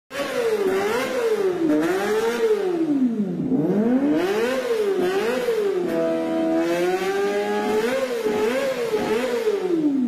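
Kawasaki Ninja ZX-25R's 250 cc inline-four revving through an aftermarket racing exhaust. The revs rise and fall in repeated quick blips, with a longer, slowly climbing rev a little past the middle.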